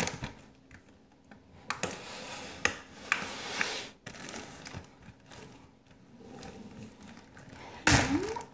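Scattered small clicks, taps and rustles of food and containers being handled on a kitchen counter, with a loud plastic bag rustle near the end.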